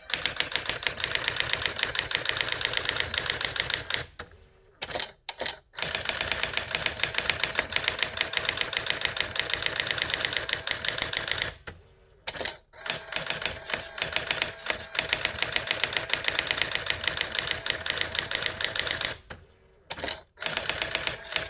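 Brother AX-20 daisy-wheel electronic typewriter printing under computer control: long runs of rapid, even character strikes, broken by three short pauses between lines.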